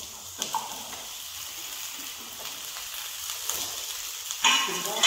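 Chopped okra sizzling in a hot pan of fried spices as it is tipped in and stirred with a wooden spatula, with a louder burst of sizzling and stirring about four and a half seconds in.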